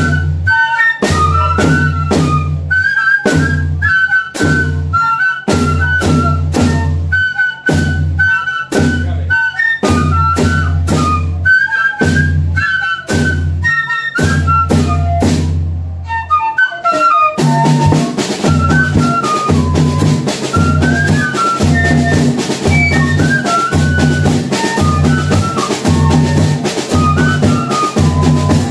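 Banda de pífano playing a Christmas tune: cane fifes carry a quick, ornamented melody over a steady bass-drum beat and percussion. About two-thirds of the way through, the percussion thickens into a brighter, denser wash under the fifes.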